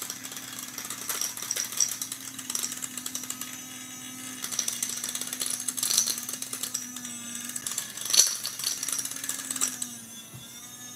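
Electric tobacco grinder running with a steady motor hum while a piece of chalk and acrylic powder rattle and click against the blade inside the cup, the chalk being ground down to tint the powder.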